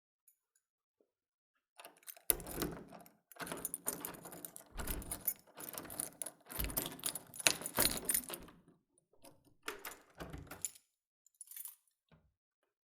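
A door being locked with a key: keys jangling on their ring and metallic rattles and clicks in the lock, with several sharp clacks along the way, then a few faint clicks near the end.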